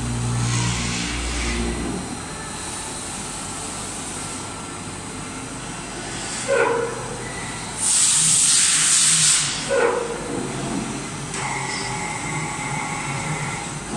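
Csepel MC 1250 CNC horizontal machining centre running: a low motor hum in the first two seconds, then a loud hiss lasting about a second and a half past the middle.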